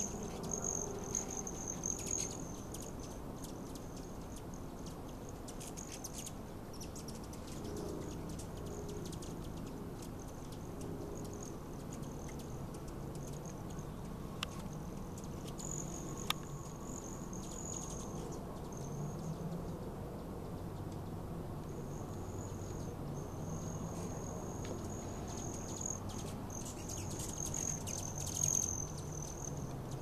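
Hummingbirds' wings trilling: a high, buzzing whistle that comes and goes as the birds fly close by, with a couple of sharp ticks about halfway through.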